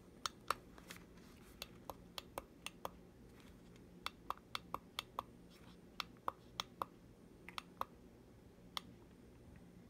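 About two dozen faint, sharp clicks and taps in small irregular clusters, made by handling the plastic moon lamp.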